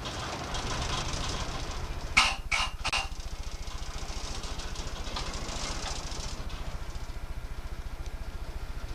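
A ferry's engines running with a steady, fast low pulsing. About two seconds in, three quick loud clanks.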